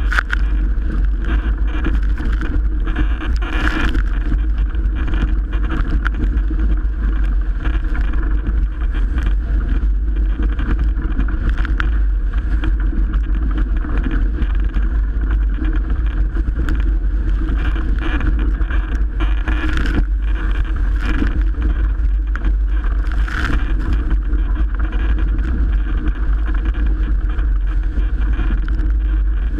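Loud, steady wind buffeting the microphone over water rushing along a Melges 24 sailboat's hull in strong wind, with scattered short knocks throughout.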